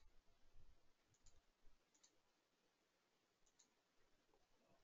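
Near silence with a few faint computer mouse clicks spread through it.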